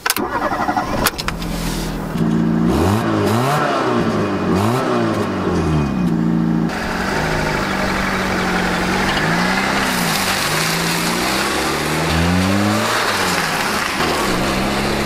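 A 1991 Fiat Uno's 1.0 FIRE 8-valve four-cylinder engine running, its revs rising and falling several times as the car drives off; from about two-thirds of the way in, a rushing tyre-on-road noise joins the engine as the car passes.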